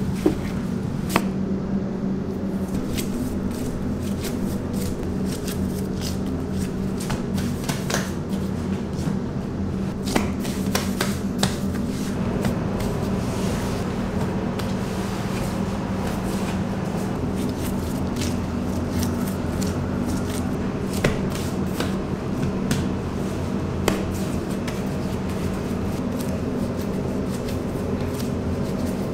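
Gloved hands working and rounding pizza dough on a floured counter: soft pats and slaps of dough with scattered sharp taps, over a steady low hum.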